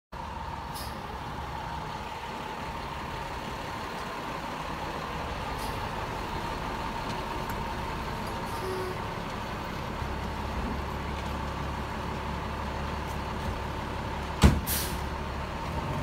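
Fire engine idling with a steady low rumble and a steady high tone over it, the rumble growing louder about ten seconds in. Near the end a sharp bang, followed by a short hiss of the air brakes releasing.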